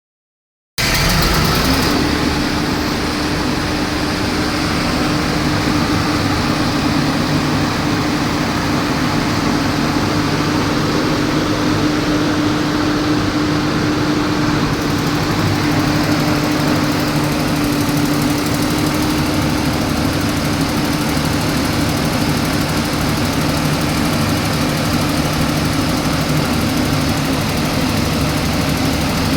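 Diesel generator set running steadily at constant speed, a continuous engine drone with a steady low tone held through it.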